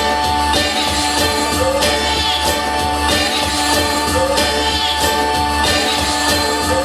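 Hip-hop beat played back loud: a short looped sample, with gliding sung or melodic figures, repeats about every second and a quarter over a steady bass.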